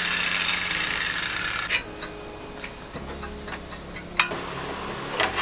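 A power tool cutting sheet metal runs briefly and stops, followed by scattered light metallic clicks and taps, with one sharper knock in the middle of them.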